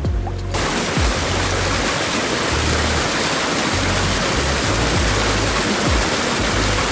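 Rushing water of a waterfall, a dense steady roar that cuts in suddenly about half a second in, under background music with a repeating bass line.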